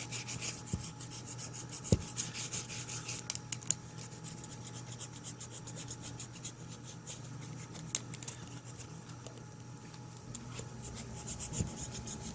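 Hands rubbing and scraping as Eternabond seal tape is worked down, a run of short rubbing strokes that are busiest in the first few seconds, with a single sharp knock about two seconds in.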